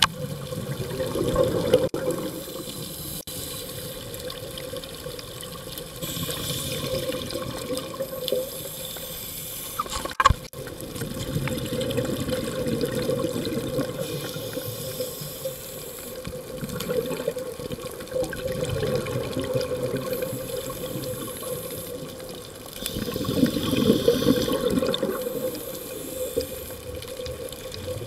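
Scuba diver breathing through a regulator underwater: exhaled bubbles gurgle in swells every five or six seconds, with a fainter hiss between them. A sharp knock about ten seconds in.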